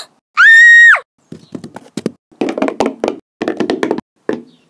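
A short, loud, high-pitched squeal that drops in pitch at the end: a voiced imitation of an angry horse. Then quick, uneven clopping knocks imitating a horse's galloping hooves.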